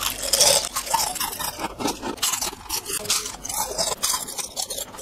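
Repeated crunching as a crispy, deep-fried kembang goyang (rice-flour rosette cookie) is bitten into and chewed, many short crisp cracks through the whole stretch.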